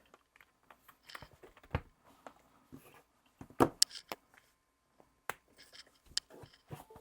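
Scattered light clicks and taps from hands handling a power bank and plugging its USB-C cable into a tablet, the sharpest about halfway through.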